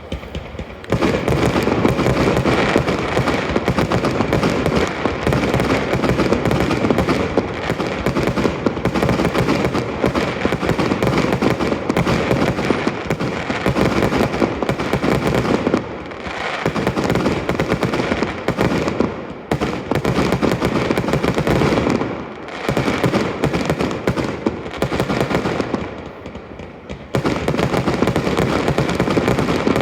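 Aerial fireworks bursting in a dense, rapid barrage: a near-continuous run of bangs and crackles that starts about a second in, easing briefly three times before picking up again.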